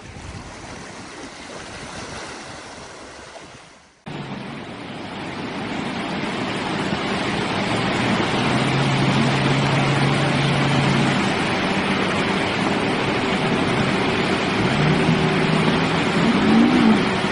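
Water rushing, then after a sudden cut a pickup truck driving through deep water, with a loud, steady wash of churning water and a low engine note under it that rises and falls near the end.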